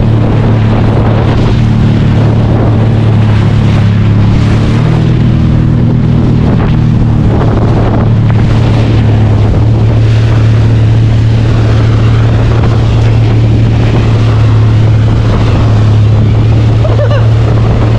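Jet ski engine running steadily at speed while towing a banana boat, a constant drone mixed with the rush of water spray and wind buffeting the microphone.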